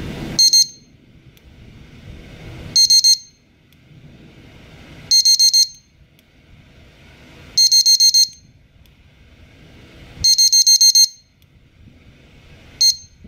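Hirisi S5 carp-fishing bite alarm beeping as its button is pressed: short bursts of rapid high-pitched beeps about every two and a half seconds, the bursts growing from two beeps to three, four, five and six, then a single beep near the end.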